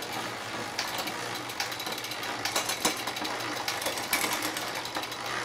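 Bicycle drivetrain turning by hand in a work stand: the chain running over an 11-42 mountain-bike cassette and through a Shimano XT long-cage rear derailleur, with sharp clicks as it shifts up across the cogs.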